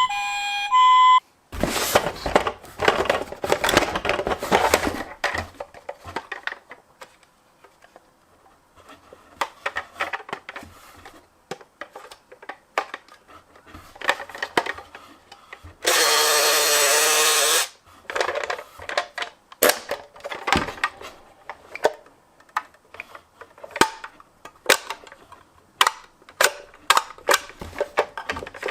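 Clicks and rattles of small plastic toy vehicles being handled, after the last second of a toy's stepped electronic siren. About halfway through, a loud steady sound lasts about two seconds and then stops abruptly.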